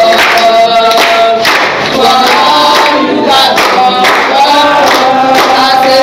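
A group of voices singing a song together, with hand-clapping.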